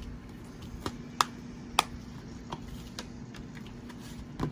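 Scattered sharp plastic clicks and taps from a Blu-ray case and its discs being handled, with the strongest about a second in, just before two seconds in, and a pair near the end, over a faint steady hum.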